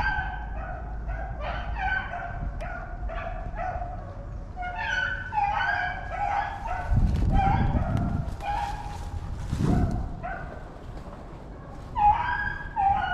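A pack of rabbit dogs baying in overlapping, repeated cries while running a rabbit's trail toward the hunter. A low rumbling rustle comes in about seven seconds in and again near ten seconds.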